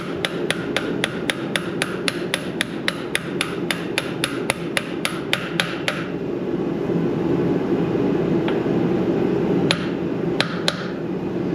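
Hammer striking a socket used as a driver to tap a new sealed ball bearing into a Ford 8N tractor's clutch housing until it sits flush: a fast even run of ringing metal blows, about four a second, for some six seconds, then a pause and three more blows near the end. A steady low hum runs underneath.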